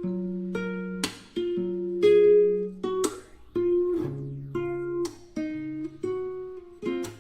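Background music: an acoustic guitar picking notes, with a strummed chord about every two seconds.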